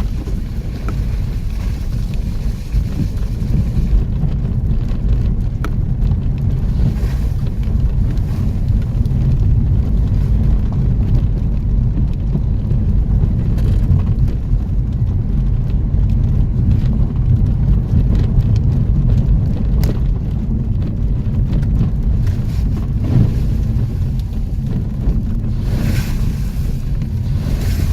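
Off-road vehicle driving over rough ground: a loud, steady low rumble with a few sharp knocks along the way.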